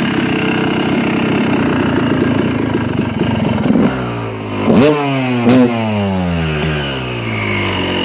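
Freshly rebuilt Yamaha YZ250 two-stroke single-cylinder dirt bike engine running, with two quick throttle blips about five seconds in, after which the revs fall away and settle.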